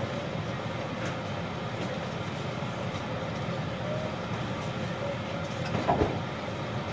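Steady low rumbling mechanical noise with a faint hum, and one brief, sharper, louder sound about six seconds in.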